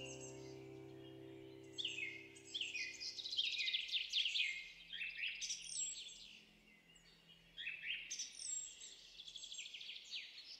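Small birds chirping in quick runs of falling notes, in two spells with a lull between them. Background music fades out over the first few seconds.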